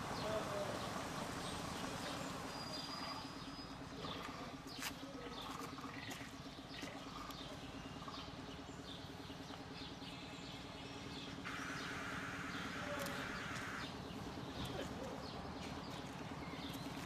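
MAN articulated city bus idling at a stop: a steady low engine hum, with birds chirping over it and a hiss of about two seconds about two-thirds of the way through.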